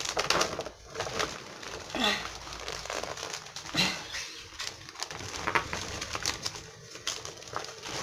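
Plastic potting-soil bag rustling and crinkling in irregular bursts as handfuls of peat soil are scooped out of it.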